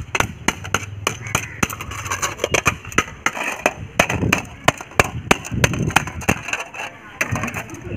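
A hammer beating a flattened tin-plate can sheet against a brick: a run of uneven sharp taps, about two or three blows a second.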